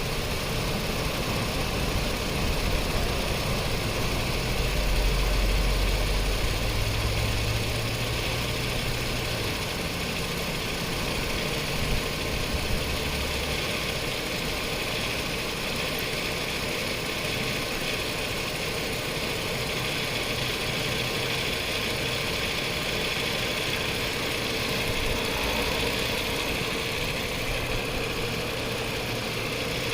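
2010 Chrysler Sebring's 2.7-litre V6 idling steadily with the A/C switched on, while the A/C system is being recharged with refrigerant. A low rumble swells for a few seconds about five seconds in, then settles back.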